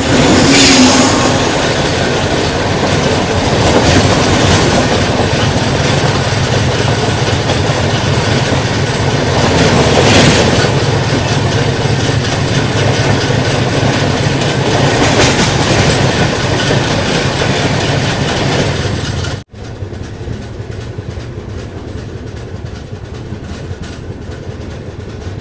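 Running noise of an Indian Railways express train heard from an open coach door: wheels clacking on the rails with rushing air, loud and steady. About 19 seconds in it cuts abruptly to a much quieter, steady rumble as the train rolls along a station platform.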